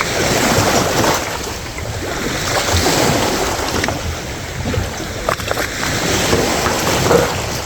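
Wind buffeting the microphone over a steady rush of sea, with a few faint knocks.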